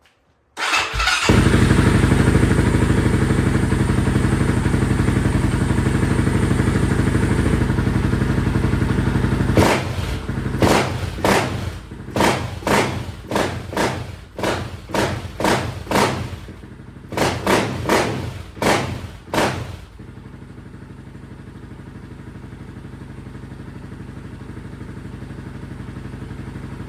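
Honda TRX700 ATV's big single-cylinder four-stroke, fitted with a stage 3 cam, aftermarket intake and exhaust and a Vortex ECU, starting up and idling, then blipped through a quick string of about fifteen throttle revs before settling to a quieter idle. It is running on the tuner's map 1 and sounds a lot better.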